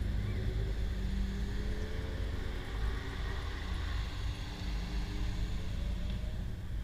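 Porsche 928's V8 running at low revs as the car rolls slowly past, a steady low engine rumble with slight changes in pitch and no hard revving.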